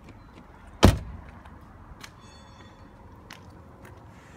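A Skoda estate's front car door swung shut with a single loud thunk about a second in, then a few faint clicks.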